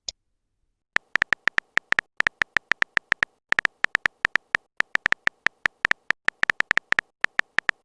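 Smartphone keyboard key clicks: a fast, uneven run of short identical taps, as when a message is being typed, starting about a second in with a brief pause near the middle.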